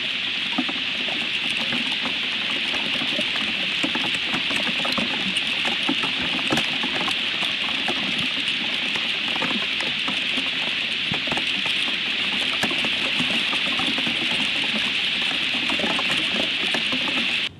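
Hail falling steadily on a stick nest and surrounding branches: a dense hiss full of small ticks as hailstones strike. It cuts off suddenly at the end.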